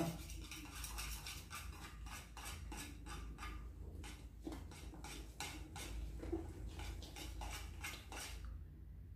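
A spoon scraping and knocking against a glass baking dish while it vigorously stirs a sticky slime mixture of glue, shaving foam and fabric softener. There are quick irregular strokes, several a second, which stop shortly before the end.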